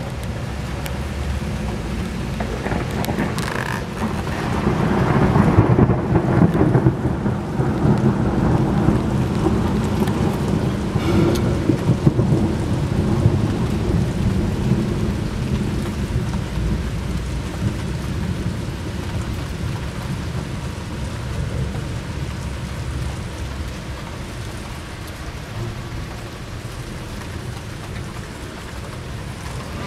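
Heavy summer rain falling steadily, with a long roll of thunder that builds about four seconds in, peaks a couple of seconds later and rumbles away over the next several seconds.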